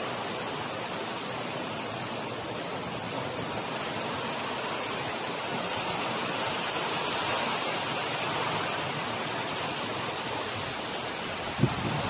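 Heavy typhoon rain pouring down steadily, an even hiss. A single short knock near the end.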